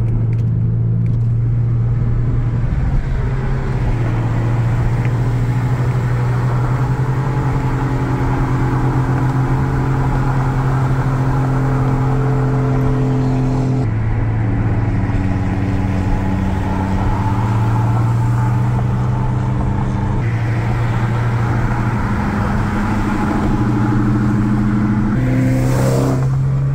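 Porsche Cayman's engine droning inside the cabin while cruising, over steady road noise. Its pitch shifts in steps a few times as the revs change, around the middle and again near the end.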